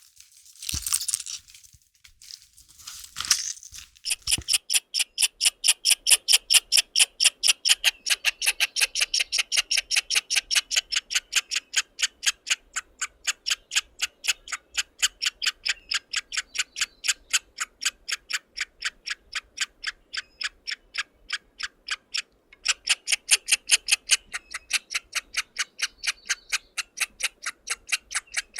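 A few short crunching noises, then steady rhythmic clicking at roughly three clicks a second, pausing briefly near the end before carrying on.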